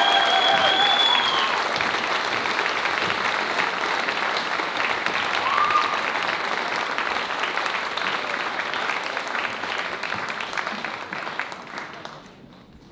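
Audience applauding, the clapping tapering off and dying away near the end. The last held notes of the band's song ring out in the first second or so.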